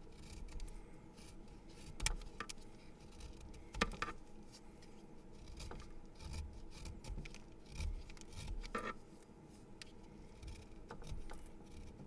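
A pencil being sharpened: irregular scraping and rubbing of the wood and lead against the sharpener's blade, with a few sharper clicks, three standing out.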